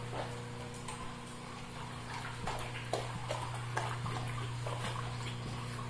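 Dogs' toenails clicking irregularly on a ceramic tile floor as they walk about, the clicks coming more often from about two and a half seconds in, over a steady low hum.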